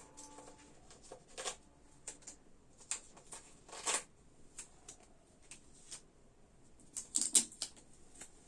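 Scattered short rustles and taps in a small room, several a second, with the loudest about four seconds in and again near the end. Faint voices are heard briefly near the start and near the end.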